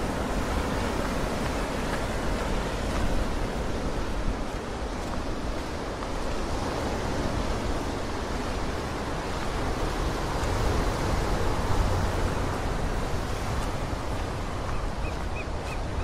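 Ocean surf breaking and washing over a rocky shoreline: a continuous rushing wash of waves that swells and eases.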